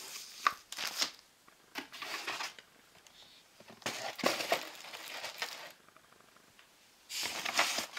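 Cardboard box being handled, its flaps pushed about and the contents shifted, in about four scraping, rustling bursts with short pauses between.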